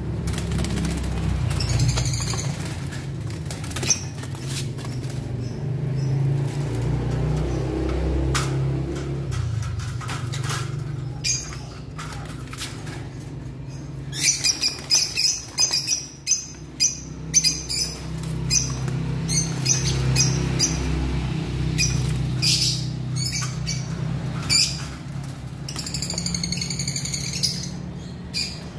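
Lovebirds fluttering and flapping in a wire cage while a hand reaches in to catch them, with short chirps near the start and near the end. A run of quick clicks and rattles comes about halfway through. A low steady hum sits underneath.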